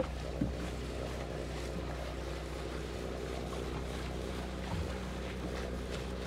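Inboard engine of a classic motor launch running steadily as it motors past, a low even drone, with wind and water noise around it.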